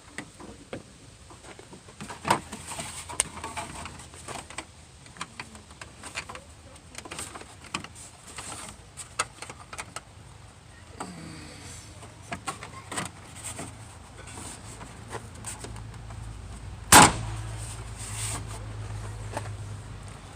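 Scattered clicks and light knocks of hand tools and door hardware being worked, with one sharp, loud knock about three-quarters of the way through. A low steady hum comes in just before that knock.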